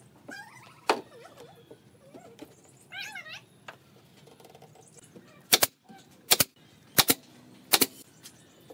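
Sharp wooden clacks while pine boards are fitted into a frame: one about a second in, then four loud double clacks about two-thirds of a second apart in the second half. Short wavering animal calls sound faintly in the background.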